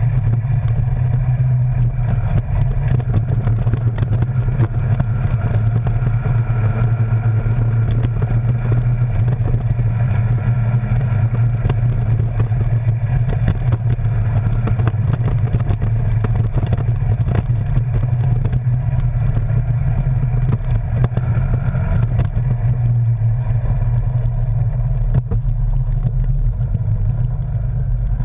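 Arctic Cat Wildcat Sport side-by-side's engine running at a steady pace, heard from inside the cab, with frequent short rattles and knocks from the machine jolting over a rutted dirt trail.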